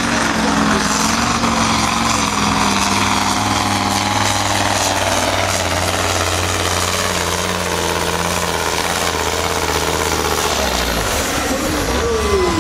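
Heavy truck diesel engine of a supersport pulling truck running at steady revs. Its note settles lower near the end, and a short falling tone follows.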